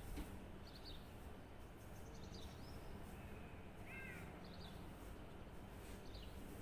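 Birds calling outdoors: short scattered chirps every second or so, with one stronger call about four seconds in, over a faint steady low rumble of background noise.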